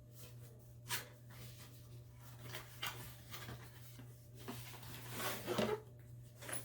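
Packaging being handled as a headphone box is opened: a few sharp clicks and then a longer rustle about five seconds in, over a steady low hum.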